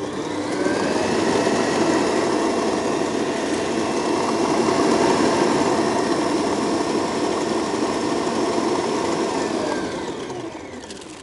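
Kenwood stand mixer's motor running steadily with a whisk, beating creamed butter, sugar and eggs for a cake batter. It spins up in the first second and winds down to a stop near the end.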